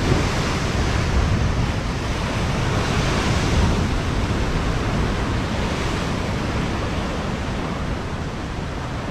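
Ocean waves surging and breaking against a rocky shore below, a steady rushing wash of surf.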